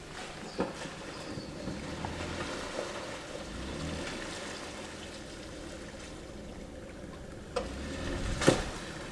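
Jeep Wrangler JK engine running as the Jeep crawls up out of a muddy hole, its low rumble swelling twice, with mud and water sloshing around the tyres. A few sharp knocks, the loudest near the end.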